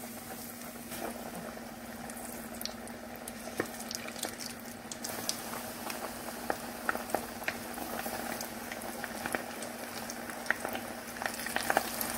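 Breaded chicken legs deep-frying in very hot oil: a steady sizzle with frequent sharp crackles and pops, which grow busier near the end as more pieces go in. A steady low hum runs underneath.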